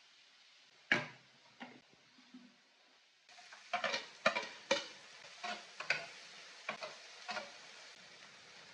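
A cooking utensil knocking and scraping against a pot, in a run of sharp clinks. A steady hiss comes in about three seconds in, like food sizzling in the pan.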